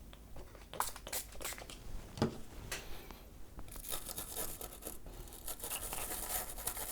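Cleaning the flux and solder residue off a small circuit board where a USB socket was ripped off: a few light clicks and rustles, then steady scrubbing from about halfway in.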